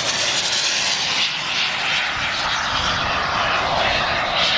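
Large-scale radio-controlled model aircraft engine running, a steady propeller drone that swells twice.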